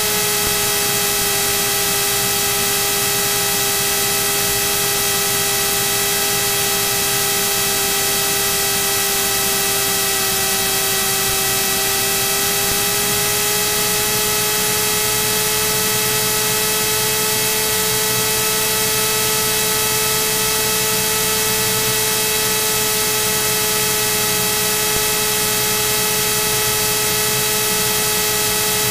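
Cirrus SR22's six-cylinder piston engine and propeller running at low taxi power: a steady drone over heavy hiss. The pitch settles lower just as it begins and creeps up slightly about halfway through.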